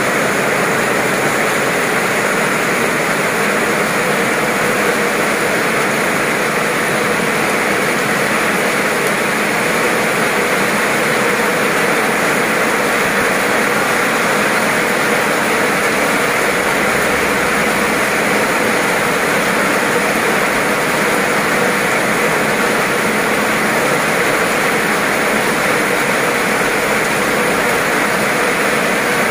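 Heavy rain pouring down steadily onto wet, flooded pavement: a dense, even downpour with no let-up.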